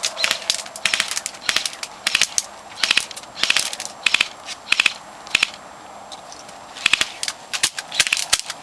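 Airsoft guns firing short bursts of rapid, clicking shots, with pauses between the bursts.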